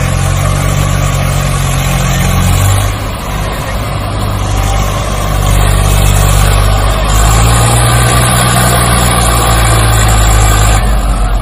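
A heavy engine running steadily with a low drone. Its pitch shifts slightly about 3 seconds and 7 seconds in.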